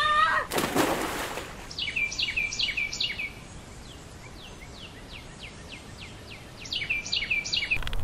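A songbird singing two runs of quick, repeated chirping notes, one about two seconds in and one near the end, over a steady outdoor background. A short burst of rushing noise comes just under a second in.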